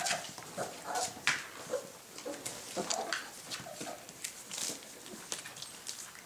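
A litter of young puppies squeaking and whimpering in short high yips, over frequent little clicks and scuffles as they move about.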